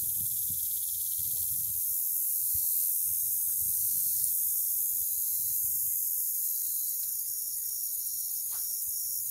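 A steady, high-pitched insect chorus with a faint repeating trill, over an uneven low rumble of wind on the phone's microphone.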